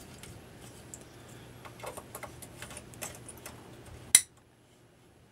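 Small plastic clicks and handling noises as the voltage-selector fuse carrier is pushed back into the Agilent E3632A's IEC mains inlet. One sharp snap comes about four seconds in as it seats.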